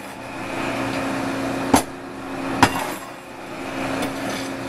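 Coal forge fire being worked with a steel fire shovel: two sharp metallic clinks a little under a second apart near the middle, over a steady hum and rushing noise.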